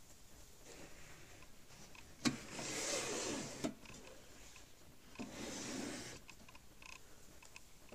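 A heavy steel equipment cabinet being slid and turned on a cloth-covered surface: two scraping slides, the first opening and ending with a knock, the second shorter.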